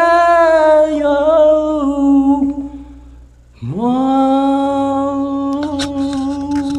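A man singing unaccompanied, holding a long drawn-out note that fades away. After a brief pause, a second long note slides up into pitch and is held steady, with a few faint clicks about six seconds in.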